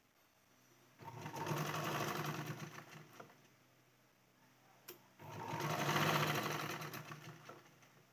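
Black domestic sewing machine stitching in two short runs, each picking up speed and then slowing to a stop, with a single sharp click just before the second run.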